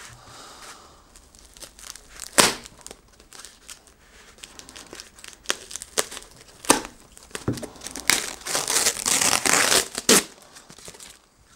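White plastic shipping bag being crinkled and torn open by hand: scattered sharp crackles, then a longer stretch of tearing and rustling near the end.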